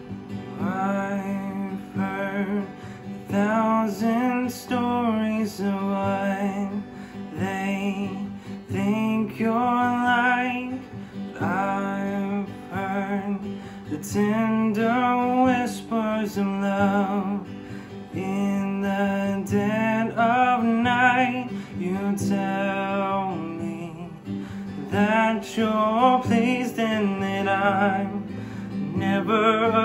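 Worship song: acoustic guitar strumming steady chords under a sung melody, the voice rising and falling in phrases with vibrato.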